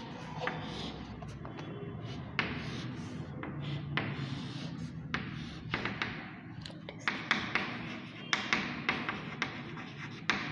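Chalk on a blackboard: a run of sharp taps and short scratching strokes as lines, a diamond shape and small words are drawn.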